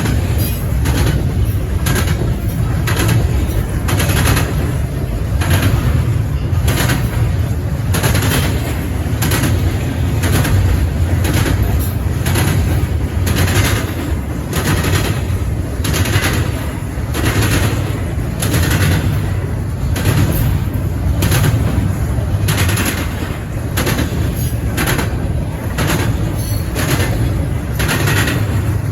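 Eastbound CN intermodal train rolling past: a steady low rumble of wheels on rail, with sharp clacks roughly once a second as car wheels cross the track joints.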